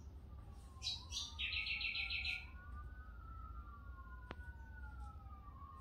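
A bird chirping and then giving a quick high trill, over a distant wailing siren whose pitch slowly rises and falls. A single sharp click comes about four seconds in, and a steady low hum runs underneath.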